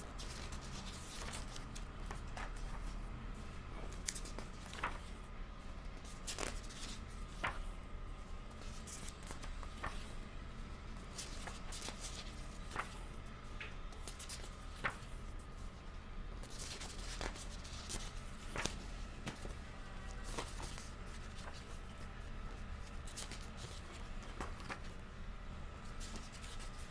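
Pages of a thick softcover book being turned by hand: irregular paper rustles and crisp page flicks.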